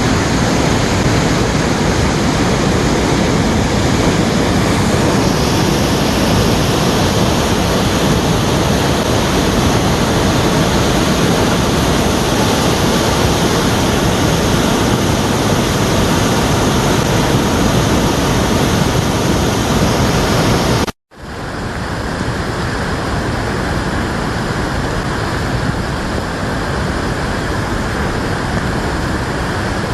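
Rain-swollen waterfall pouring, a loud, steady rush of water. The sound cuts out for an instant about two-thirds of the way through and comes back slightly softer.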